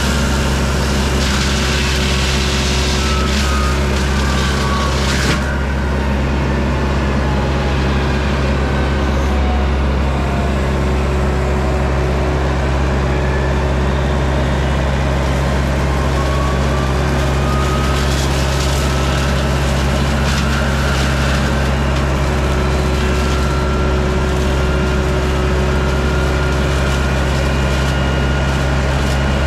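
John Deere 60G compact excavator's diesel engine running steadily and loud, driving a Baumalight hydraulic brush mulcher head. Harsh hissing surges of shredding come as the spinning mulcher chews into brush, a second or so in and again about two-thirds of the way through, with a sharp crack about five seconds in and a faint whine sliding in pitch.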